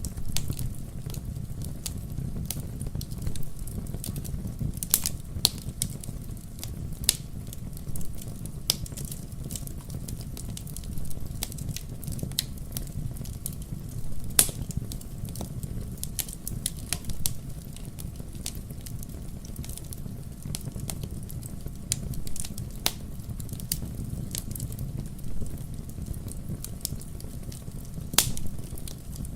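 Wood logs burning in a fireplace: irregular crackles and sharp pops over a steady low rumble of the flames, with a few louder pops scattered through.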